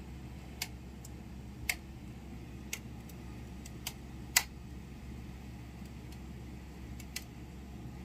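Irregular sharp ticks and small cracks, about six in eight seconds, from a Panasonic split air conditioner's indoor unit as its evaporator coil frosts over, over a low steady hum. The blower fan has stopped: the owner takes the fan for broken, and with no air over the coil it ices up.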